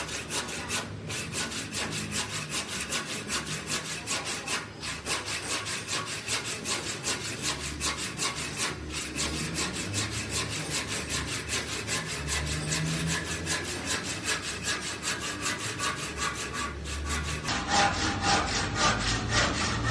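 Handsaw cutting through the leg of a wooden door jamb in fast, even back-and-forth strokes, with a few brief pauses. The cut trims about 4 cm off the jamb so that it fits the floor height.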